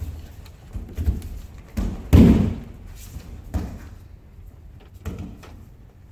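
Thuds on tatami mats as an aikido partner is thrown, takes the fall and is pinned: several separate thumps and footfalls, the loudest a heavy thud about two seconds in.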